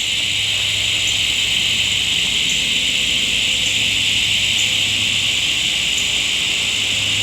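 Steady, high-pitched drone of a night insect chorus, unbroken throughout, with a faint low hum beneath.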